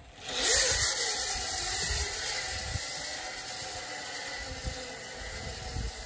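Zip line trolley's pulley wheels rolling down the steel cable, a whirring hiss that starts suddenly and fades slowly as the trolley runs away down the line.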